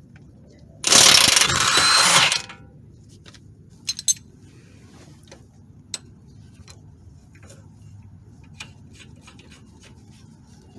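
Ratchet wrench clicking rapidly for about two seconds as it spins a 17 mm nut loose, followed by scattered light clicks and taps of tools and metal parts.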